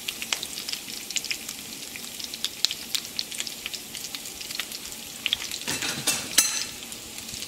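Tempering spices (mustard and cumin seeds, chana dal, curry leaves and dried red chillies) sizzling in hot oil, with scattered crackling pops and a louder cluster of crackles about six seconds in.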